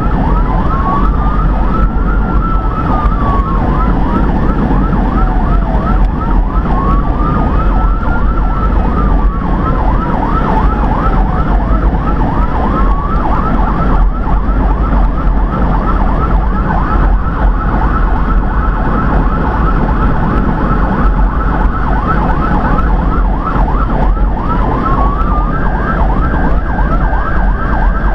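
Electronic emergency siren on a responding vehicle, running a fast chirping yelp that repeats several times a second. A slower wail rises and falls about every six seconds through the first half and starts again near the end. A constant low rumble of road and engine noise lies beneath.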